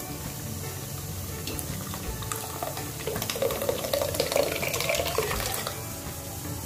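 Boiled moong and chana dal being poured from a vessel into a steel pot of cooked spinach and tomato masala, splashing and glopping in, loudest about halfway through.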